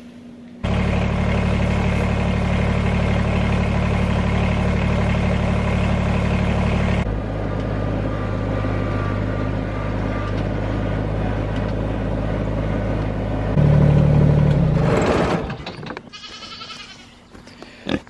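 Compact tractor engine running steadily under the operator's seat while the tractor drives with a loaded front bucket. The engine note shifts to a lower, different tone about seven seconds in, rises louder about a second before it stops near the fifteen-second mark, and then drops away.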